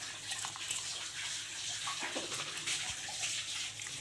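Water poured in a thin, steady stream into a stainless steel cooking pot.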